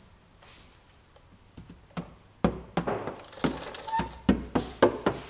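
Polishing paste squeezed from a plastic squeeze bottle: after about two seconds of quiet, an irregular run of short, sharp squirts and clicks, two or three a second.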